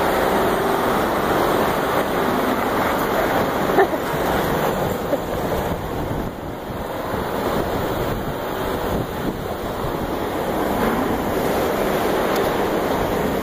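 Wind rushing over the phone's microphone, a steady rushing noise, with a couple of small knocks about four and five seconds in.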